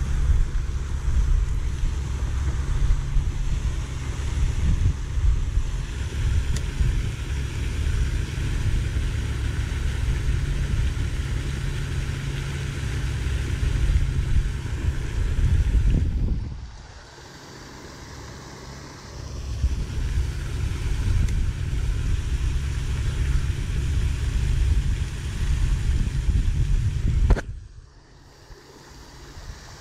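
Wind buffeting the microphone outdoors: a heavy, uneven low rumble with hiss above it. It drops away suddenly twice, once a little past the middle and again near the end.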